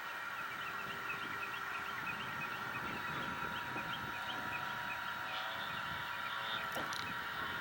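Radio-controlled aerobatic model airplane in flight, its motor and propeller giving a steady whine, with wind rumbling on the microphone. Short bird chirps run through it.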